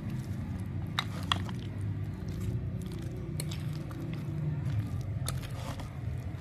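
A spoon stirring a creamy fruit-and-vegetable salad in a glass bowl: soft wet squishing, with a few sharp clicks of the spoon against the glass, over a steady low hum.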